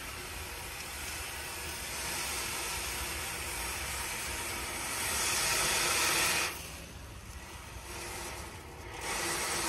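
Water from a garden hose nozzle running into an aluminium foil pan, a steady splashing rush. The flow eases off about six and a half seconds in and picks up again just before the end.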